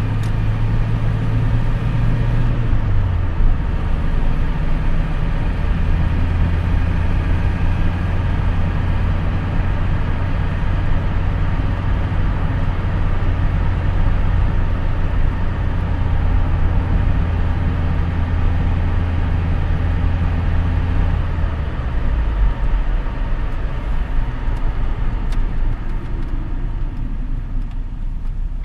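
Wartburg 1.3's four-cylinder engine droning steadily under tyre and wind noise, heard from inside the cabin at motorway speed. The engine note dips briefly about three seconds in and drops to a much lower pitch about 22 seconds in.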